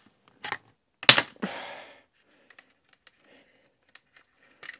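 Hard plastic clicks and snaps as an Icon Variant Pro motorcycle helmet's visor is unhooked from its side pivot mechanism, with one sharp snap about a second in and lighter clicks before and after.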